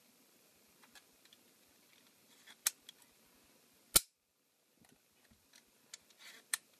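Hard plastic clicks and snaps from a 3D-printed mini crossbow being handled, with a single sharp snap about four seconds in that is much louder than the rest. Lighter clicks follow as the blue slider is worked along the rail.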